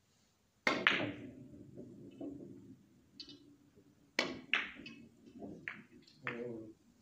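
Carom billiard balls in play: a sharp click of the cue tip on the cue ball about half a second in, a ball-on-ball click just after, and a low rumble of balls rolling on the cloth and rebounding off the cushions. About four seconds in comes a second run of sharp clicks as the balls meet again.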